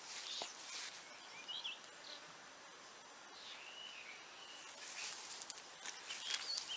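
Faint outdoor garden ambience: a high, insect-like hiss with a few short chirps scattered through it.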